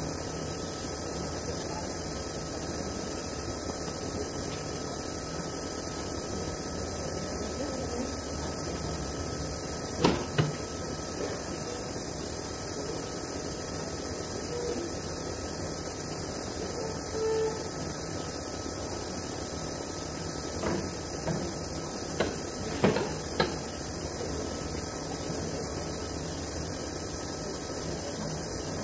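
Steady hum and hiss of workshop background noise, with two sharp knocks about ten seconds in and a few more knocks past the twenty-second mark.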